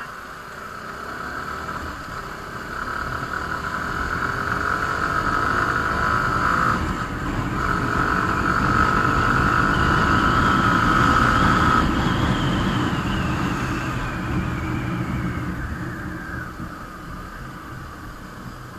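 Motorcycle riding at speed, engine running with wind rushing over the microphone; the engine note climbs in pitch over the first few seconds as the bike accelerates, grows louder toward the middle, then eases off.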